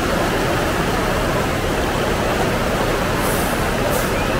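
Fast-flowing floodwater rushing in a swollen river: a steady, even rush of water.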